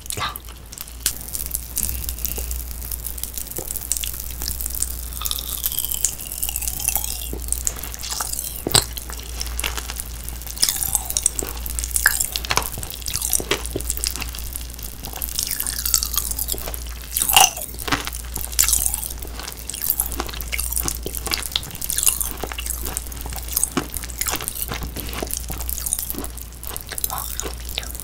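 Close-miked wet chewing and mouth smacking, with many small irregular clicks and crunches from eating grilled fruit, over a steady low hum.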